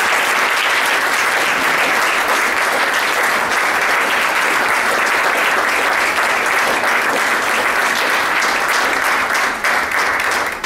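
Audience applauding steadily, a dense patter of many people's hand claps that begins to thin out near the end.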